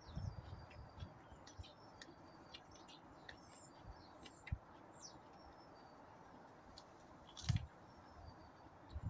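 Small birds chirping in the background with short, high calls and quick glides, over quiet close-up chewing. There is a louder sharp click with a low thump about seven and a half seconds in.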